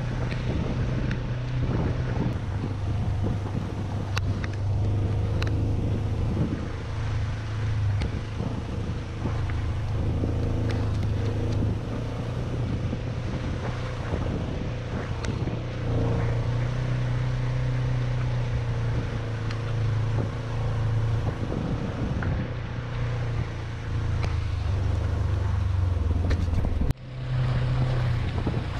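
UTV engine running steadily while driving along a rough dirt track, its pitch shifting a little with the throttle, with wind buffeting the microphone and a few sharp ticks. The sound breaks off briefly near the end, then resumes.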